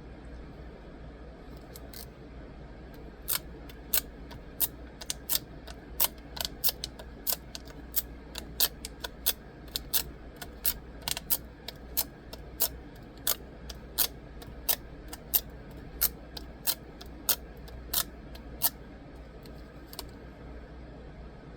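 A series of sharp, short clicks, irregularly spaced at about one or two a second, starting about two seconds in and stopping shortly before the end, over a faint steady low hum.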